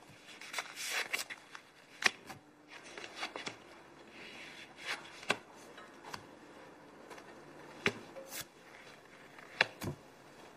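Playing cards (a tarot deck) being slid and laid down on a table: soft rubbing of card on the tabletop with a few sharp taps as cards are set down, the loudest about two, five, eight and nine and a half seconds in.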